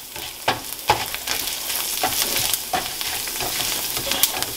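Whole spices (black peppercorns, fennel and cumin seeds, dried red chillies) and raw rice sizzling in a little oil in a nonstick frying pan, dry-roasting over medium heat. A nylon spatula scrapes and clicks against the pan again and again as they are stirred.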